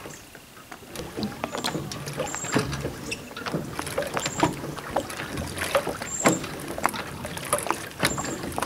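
Pedal-driven twin-hydrofoil drive on a kayak, its cable linkage and trolling-motor-mount arms clicking and knocking irregularly as the foils swing back and forth; the cables are still slack and need tightening.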